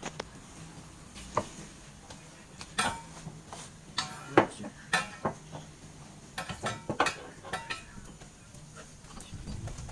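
Old steering rack being worked loose by hand from under the car: scattered metallic clinks and knocks as the rack shifts against its mounts and the subframe, a few ringing briefly, the loudest about four seconds in.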